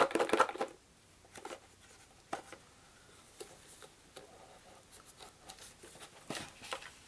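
Cardboard scraping and rubbing with scattered light clicks as a tight-fitting small game box is worked open by hand.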